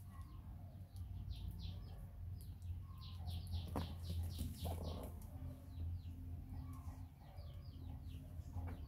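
Small birds chirping in quick runs of short, high, falling notes, busiest a few seconds in and again near the end, over a steady low hum. A single sharp click about four seconds in.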